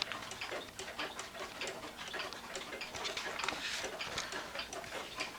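Small one-day weight-driven cuckoo clock ticking steadily, just wound.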